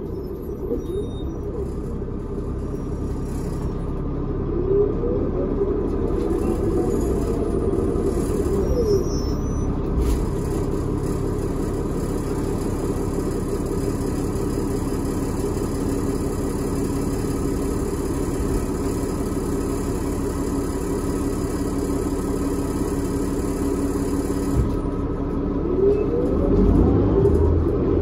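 Cabin sound of a New Flyer D40LF bus with a Cummins ISL inline-six diesel and ZF Ecomat automatic transmission, running under way as a steady low drone. The engine note rises and falls a few seconds in and starts rising again near the end as the bus pulls away.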